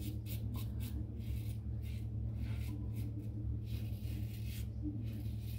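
Wet-shaving strokes on the skin: a run of short, quick scraping strokes, irregularly spaced, with a longer stroke about four seconds in. A steady low hum runs underneath.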